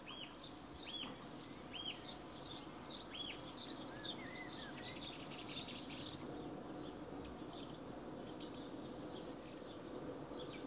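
Birds chirping over steady background noise: a few short arched calls about a second apart at first, then a busier twittering of many quick chirps.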